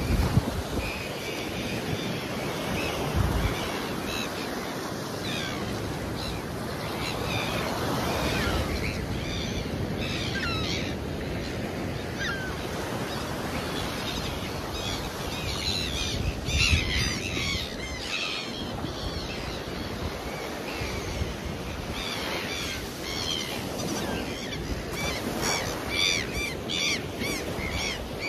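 Surf washing onto the beach, with wind on the microphone and birds chirping over it, the chirps coming thickest around the middle and near the end.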